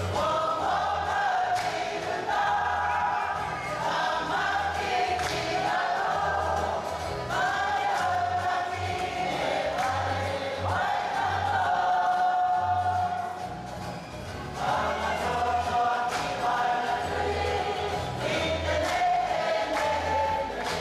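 Māori kapa haka group of elders, men and women together, singing a waiata as a choir, with long held notes and a short dip in loudness about two-thirds of the way through.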